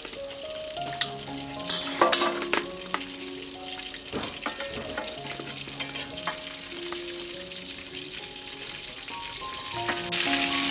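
Pieces of fish sizzling as they fry in oil in a wok, with a metal ladle clicking and scraping against the pan a few times. The sizzling grows louder near the end.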